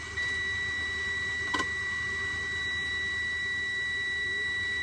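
A semi truck's dashboard warning buzzer sounding one long steady high beep with the key switched on, over a low hum. A single click about a second and a half in.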